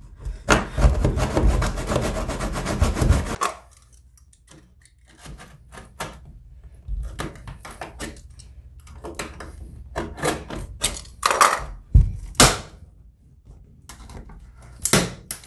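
A Leatherman multi-tool blade cutting into wooden baseboard trim by hand. About three seconds of loud, rapid back-and-forth scraping strokes come first, then scattered quieter scrapes and clicks as the wood is worked out of the notch, with a couple of sharper knocks about twelve seconds in and again near the end.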